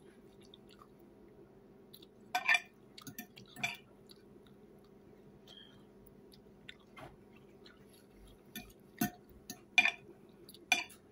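A person chewing food, with a handful of short sharp clicks and scrapes from a knife and fork working on a plate, over a faint steady room hum.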